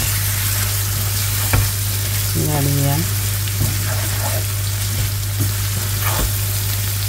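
Masala and pieces of baim (spiny eel) fish sizzling in an aluminium pan while a wooden spatula stirs them, with a couple of sharp knocks of the spatula against the pan. Under it runs a steady low hum.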